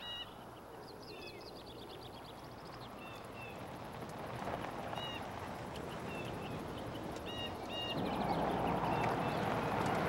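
Birds chirping, with a quick trill about a second in, while a step van's engine and tyres on a dirt road grow louder as it approaches, loudest in the last two seconds.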